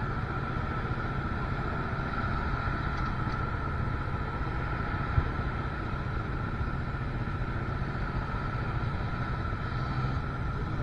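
Motorcycle riding along at a steady pace: engine running with wind and road noise, and a single short knock about halfway through.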